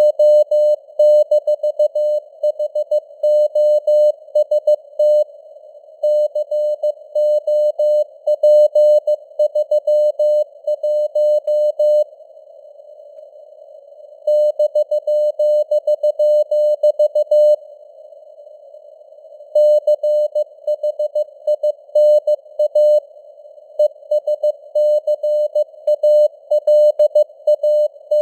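Morse code (CW) sent as a single mid-pitched tone keyed in dots and dashes at 15 words per minute, over a narrow band of simulated radio hiss with simulated fading of signal strength. It pauses for about two seconds a few times, with only the hiss left.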